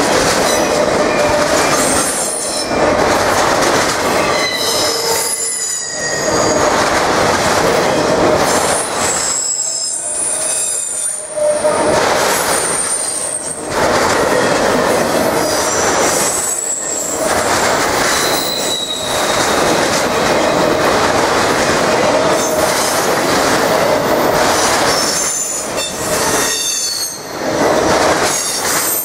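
Autorack freight cars rolling past at close range: a steady rumble and rattle of steel wheels on the rails, with short high wheel squeals coming and going. The noise dips briefly every few seconds.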